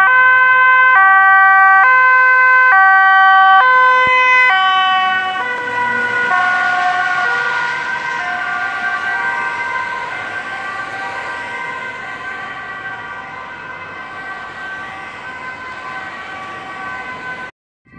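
Dutch ambulance's two-tone siren, switching between a high and a low pitch about once a second. It is loud at first, then fades under traffic noise as the ambulance moves away, and cuts off abruptly near the end.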